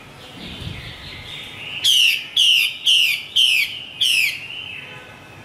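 Female Chinese hwamei (melodious laughingthrush) calling: a faint warble, then five loud, harsh, downward-sweeping calls in quick succession.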